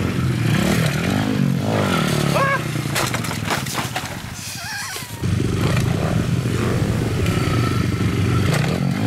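Small pit bike engine revving as it is ridden over dirt jumps, its pitch rising and falling about a second in. Around three seconds in there is a brief clatter as the bike goes down in the dirt. The engine note drops away, then comes back steady and loud at about five seconds.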